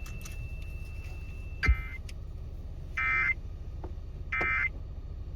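Three short electronic data bursts of a NOAA Weather Radio SAME end-of-message code, each about a third of a second long and a little over a second apart, marking the end of the alert message. A steady low rumble runs underneath, and a sharp click comes just before the first burst.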